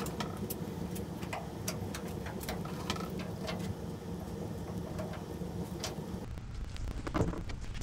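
A body-filler spreader scraping and clicking as fiberglass-reinforced body filler is worked onto a truck bed's cracked corner: a string of short, irregular scrapes and taps. Under them is a steady low hum that stops about six seconds in.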